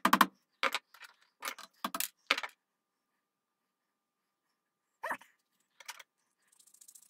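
A dog barking: about five quick barks in the first two and a half seconds, then two more a few seconds later. A faint high scratchy rattle comes near the end.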